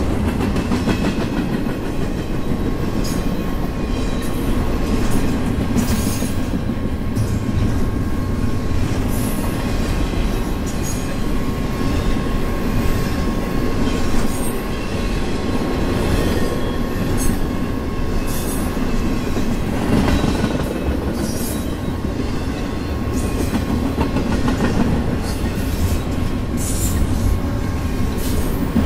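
CSX intermodal freight train's double-stack container and trailer cars rolling past at speed: a steady rumble of steel wheels on rail, with scattered sharp clicks and clanks and a faint steady high whine.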